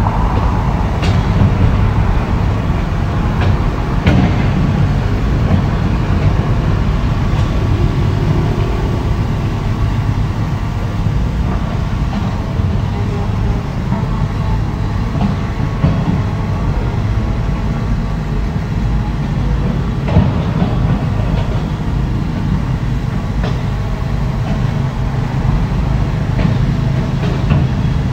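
Heavy diesel engine of earthmoving machinery running steadily under load, with a few short knocks and clanks now and then.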